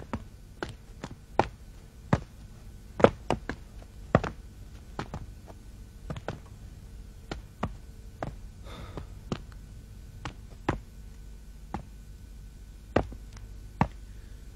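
Irregular sharp knocks and clanks, one to three a second, over a faint steady hum, with a brief hiss about nine seconds in.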